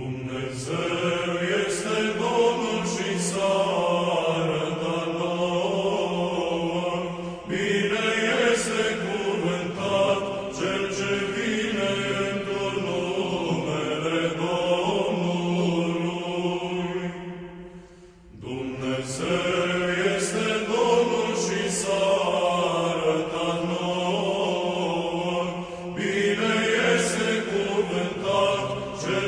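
Eastern Orthodox church chant: voices sing a slow, melismatic melody over a steady held low note. The chant pauses briefly about eighteen seconds in, then resumes.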